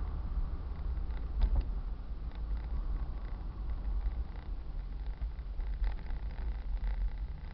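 Car driving along a winding road, heard from a dashboard camera inside the cabin: a steady low rumble of engine and tyres, with a few light clicks and a sharper knock about a second and a half in.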